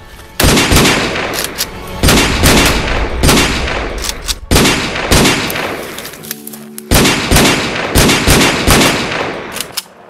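Bursts of automatic rifle fire in a gunfight: volleys of rapid shots, each trailing off in a long echoing tail, coming roughly every second, with a brief lull about six seconds in.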